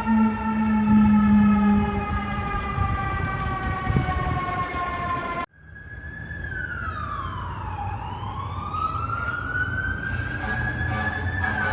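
Fire truck sirens. A mechanical siren winds down steadily in pitch, and a low air horn blast ends about two seconds in. After a sudden cut about five and a half seconds in, a siren wails, falling and then rising slowly in pitch.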